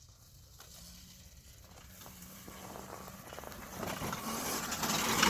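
A pit bike approaching over rough, bumpy dirt, getting steadily louder, with a crackle of tyres and gravel over a faint motor hum.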